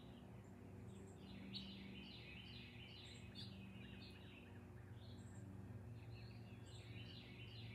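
Faint birdsong: a songbird repeating short, falling chirps, a few each second, over a steady low hum.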